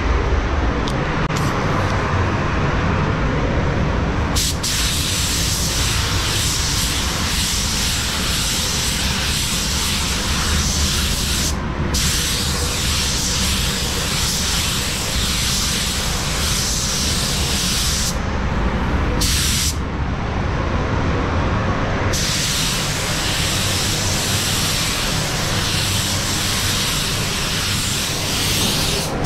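Paint spray gun hissing as it sprays clear coat onto a car bumper, over a steady low rumble. The spraying starts about four seconds in and stops briefly a few times between passes.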